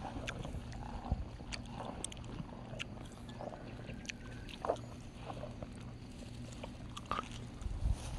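Cow grazing in dry grass: scattered soft crunches, clicks and rustles as its muzzle works at the ground, over a faint steady low hum. Low rumble rises near the end.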